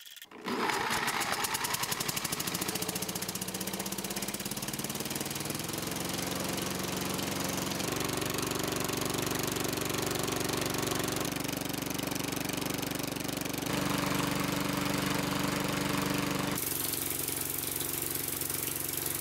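Single-cylinder lawn mower engine, its cylinder head held on by zip ties plus three head bolts, coming to life about half a second in and running steadily, its note shifting abruptly a few times.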